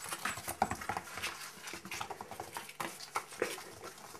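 Month-old kittens play-fighting and scampering on a hard floor: a busy, irregular pattering and scratching of small paws and claws.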